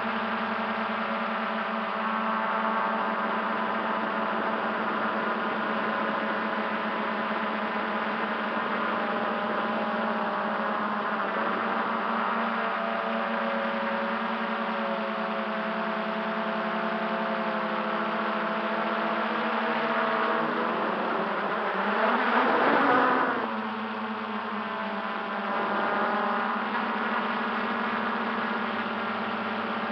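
MJX Bugs 3 quadcopter's brushless motors and propellers whirring steadily in flight, heard close up. About two-thirds of the way through, the pitch sweeps up and falls back as the motors briefly speed up; this is the loudest moment.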